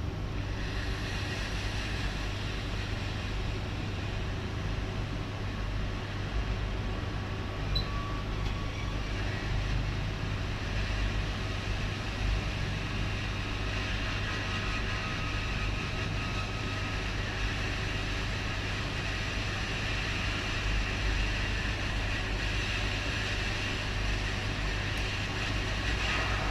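Steady blowing fan noise with a constant low hum, with no clear knocks or clicks.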